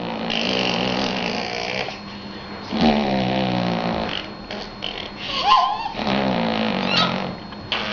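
Drawn-out snoring-like vocal noises, three long ones, with short high rising squeaks between them.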